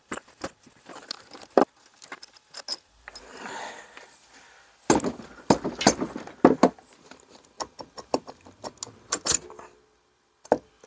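Wooden mallet knocking again and again on the aluminium cylinder head of a 125cc motorcycle engine to shock it loose from the block, with metallic clatter as the head works free. The knocks come in quick succession, thickest about halfway through.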